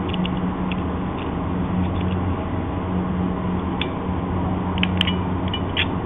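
Bootlace ferrule crimper's ratchet clicking as its handles are squeezed and released: a few scattered clicks, then a quick cluster near the end. A steady low hum runs underneath.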